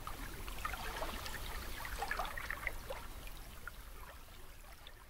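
Water of a small stream trickling and babbling, with many small splashes, fading gradually over the last couple of seconds.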